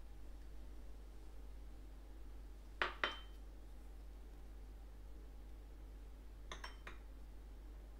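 Small ceramic bowls clinking against a ceramic serving plate as ground sugar and cinnamon are tipped in: two sharp clinks about three seconds in and three lighter ones near the end, over a steady low hum.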